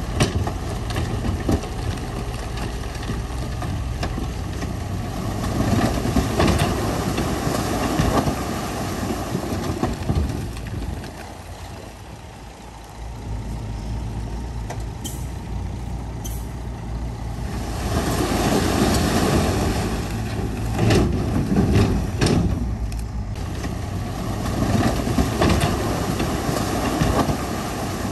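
Heavy diesel earthmoving machinery working: engine noise that rises and falls, drops away briefly a little before halfway, then builds again, with a few short clanks.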